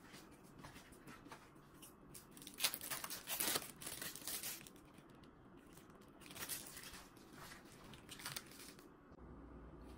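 Plastic wrapping of a processed cheddar cheese slice crinkling and tearing as the slice is unwrapped and laid on the lasagna, in short rustling spells, loudest about three seconds in and again past the middle.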